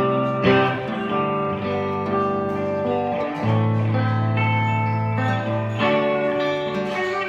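Guitar playing, chords and single notes left ringing, with a held low note in the middle of the passage.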